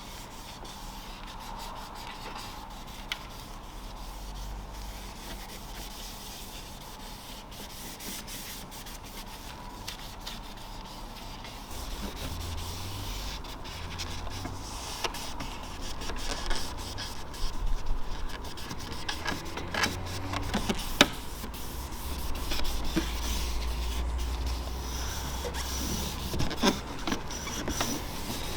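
Rubbing and scrubbing of hand cleaning work on engine-bay surfaces, over a faint steady hum. About halfway through it gets busier, with scattered short clicks and knocks.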